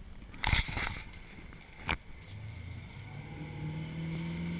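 A few sharp knocks of the camera being handled on its mount in the first two seconds, then the ski boat's engine rising in pitch and settling into a steady run as it tows a water-skier.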